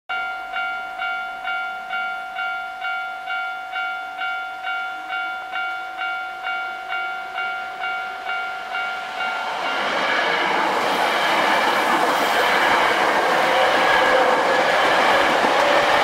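Japanese level-crossing warning bell ringing in quick, even strokes, about two and a half a second. From about ten seconds in it is drowned out by a Hankyu 3300-series electric train, an eight-car set, approaching and running past the crossing, its running noise rising loud.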